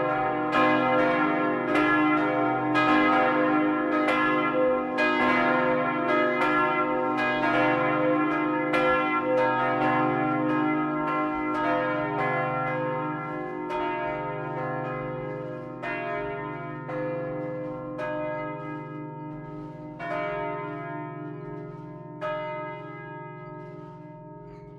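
Full peal of four church bells, cast in 1952 by Karl Czudnochowsky, heard close up inside the bell tower, their strokes overlapping with long ringing tones. The strokes grow fewer and fainter as the peal dies down.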